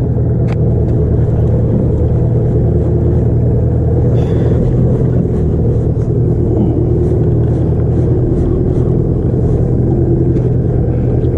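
Small boat's outboard motor running steadily with a low, even drone.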